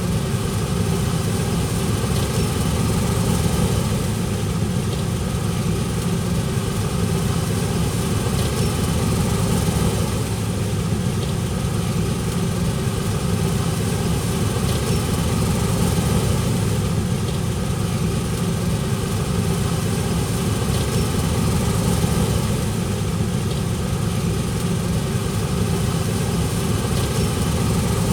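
Heavy diesel engine of farm machinery running steadily at a constant speed, a low even drone.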